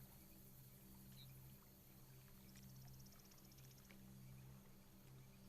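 Near silence: faint outdoor ambience with a low steady hum, and a brief run of rapid high-pitched ticking about two and a half seconds in.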